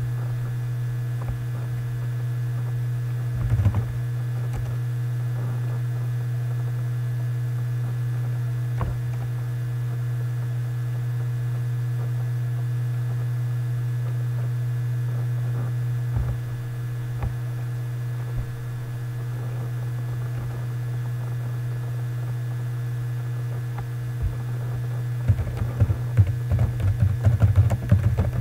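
Steady electrical hum with an occasional click, then a quick run of computer keyboard typing in the last few seconds.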